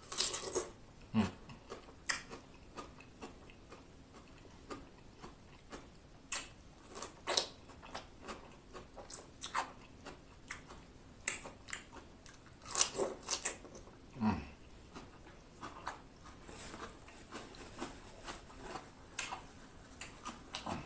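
Close-miked eating: irregular crunching, biting and wet chewing as shrimp and raw cucumber are bitten into and chewed.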